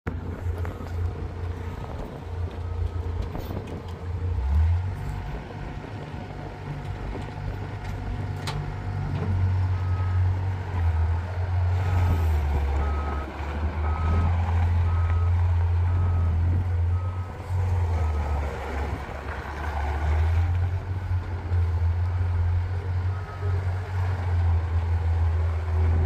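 Bobcat 843 skid steer loader's diesel engine running with a steady low drone, working harder and louder from about ten seconds in as the machine drives and turns. A backup alarm beeps evenly, roughly three beeps every two seconds, through most of it.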